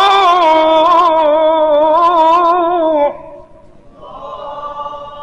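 Male Quran reciter's voice holding one long, ornamented note with a wavering pitch in melodic mujawwad recitation. It breaks off about three seconds in, and fainter voices follow.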